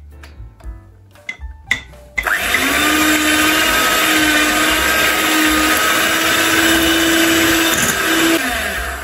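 Electric hand mixer starts about two seconds in and runs at a steady pitch, its beaters whisking a runny egg-and-yogurt batter in a glass bowl, then winds down near the end.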